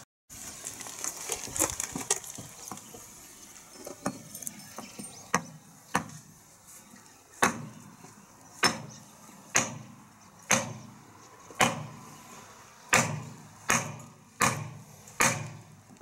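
Small cleaver-style camp hatchet chopping into the end of a dried log. It makes sharp wooden chops at about one a second, a dozen or so in a row, after a few lighter knocks at first.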